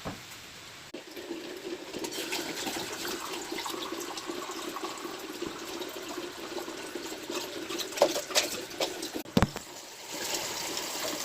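Water running steadily, with a few sharp knocks about eight to nine seconds in.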